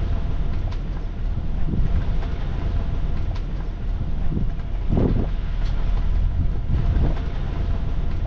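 Wind buffeting the microphone, a steady low rumble with a few gusts swelling and fading around the middle and near the end.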